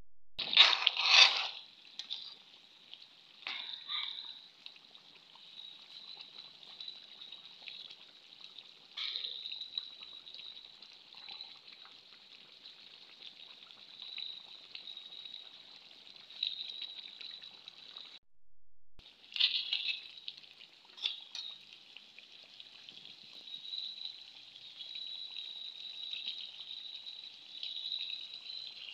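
Duck curry simmering in a wide pan, its gravy bubbling with a steady, fairly high hiss. There are a few louder knocks or scrapes near the start and about twenty seconds in, and a brief break just past the middle.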